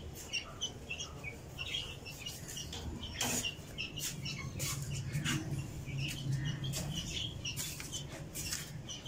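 Chicks peeping: many short, high chirps in quick succession, with a few sharp clicks and rustles among them.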